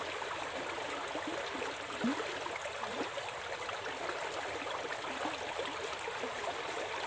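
Stream water running steadily past the bank, with a faint short chirp about two seconds in.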